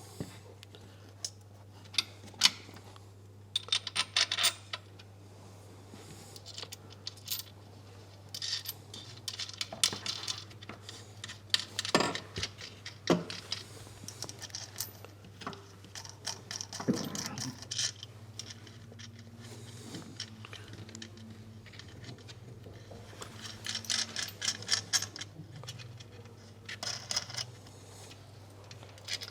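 Small metal engine parts and hand tools clinking and rattling as they are handled: scattered sharp clicks and short jingling clusters, over a steady low hum.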